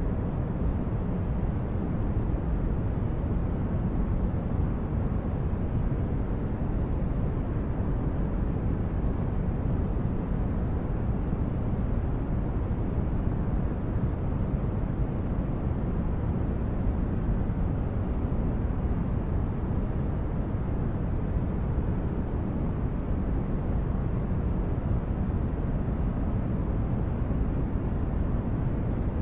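Steady low rumbling noise of a sci-fi spaceship ambience, a deep brown-noise hum like an engine heard through the hull, unchanging throughout.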